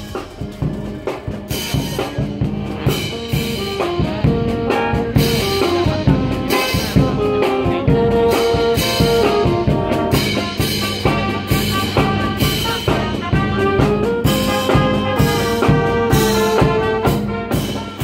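Brass band playing a tune on trumpets, trombones and saxophone over a steady drum beat, fading out near the end.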